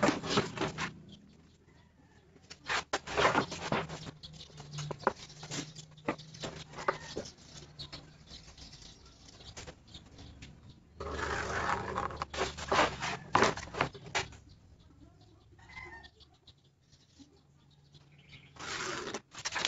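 A clear plastic straightedge handled on plywood sheets: scattered taps, clacks and short scrapes as the ruler is laid down and shifted. About eleven seconds in comes a longer scrape of about three seconds, as a line is drawn along the ruler.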